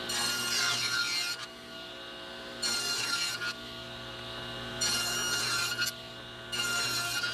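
Table saw running with a steady whine, cutting through small pieces of wood four times in a row, each cut lasting about a second.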